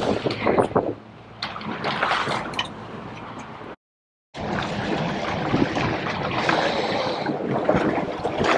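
Water splashing and sloshing at the side of a fishing boat, with wind buffeting the microphone; the sound cuts to complete silence for about half a second near the middle, then the sloshing resumes steadily.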